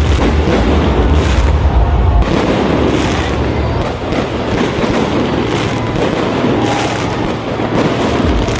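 Fireworks bursting in rapid succession: deep rumbling booms for the first two seconds, then a steady run of sharper bangs and cracks.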